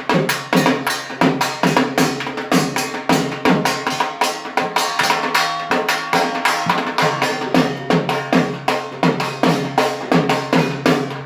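Dhak, the Bengali barrel drum of Durga Puja, beaten with sticks in a fast, steady rhythm of about four strokes a second, the deep strokes dropping in pitch as they ring.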